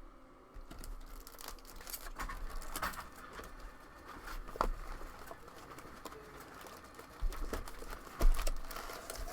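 Baseball card packs being handled and torn open: foil wrappers crinkling and tearing, with cards sliding and tapping in irregular short strokes and a louder knock about eight seconds in.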